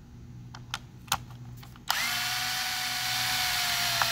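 Cordless electric screwdriver backing out a screw from a plastic receiver box. A few small clicks of handling come first; about two seconds in, the motor spins up with a short rise in pitch and runs with a steady whine until the end.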